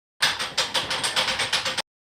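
Machine-like sound effect, a noisy pulsing at about seven beats a second, like an engine running. It cuts off abruptly near the end.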